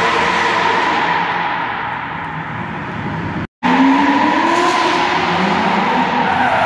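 Drift cars sliding in tandem, one of them an LS V8-swapped Toyota GT86: engines revving hard with rising and falling pitch over a steady tyre squeal. The sound drops out for a moment about halfway through, then the revving picks up again.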